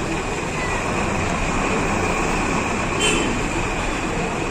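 Steady rumble of street traffic, with vehicle engines running close by, and one short sharp clack about three seconds in.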